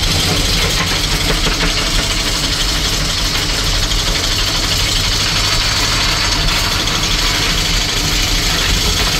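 Maxwell RC10 electric windlass motor running steadily, hauling in anchor chain with its clutch tightened, while the chain links rattle down into the chain locker.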